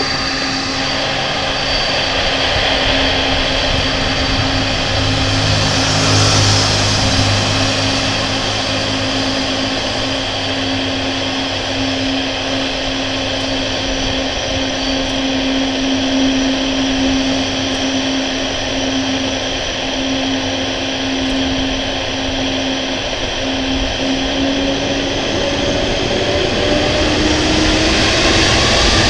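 Boeing 747-400 freighter's four General Electric CF6-80C2 turbofan engines running at taxi power: a steady jet whine over a broad rushing rumble. Near the end the whine rises in pitch.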